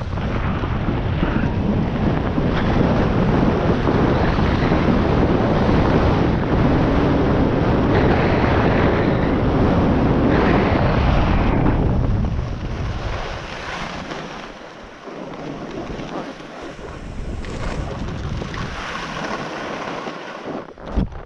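Wind buffeting the microphone of a camera moving quickly downhill on a ski run, mixed with the hiss of snow sliding underfoot. It is loudest for the first twelve seconds, then drops and thins as the speed eases.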